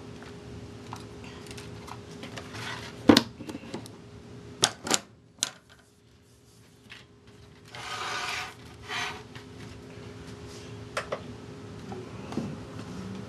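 Hands handling a computer mouse's braided cable and USB plug over a wooden desk: a few sharp knocks and clicks, the loudest about three seconds in, then two brief rustles around eight and nine seconds.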